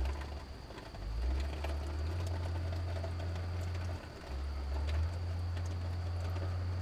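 Low mechanical drone of running machinery, its pitch stepping up about a second in, dipping briefly near four seconds and rising again about a second later, with a thin steady high whine and a few faint clicks above it.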